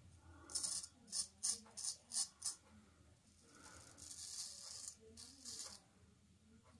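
Half-hollow straight razor scraping through a lathered full beard: a quick run of about six short strokes, then a longer stroke about four seconds in and a couple more after it.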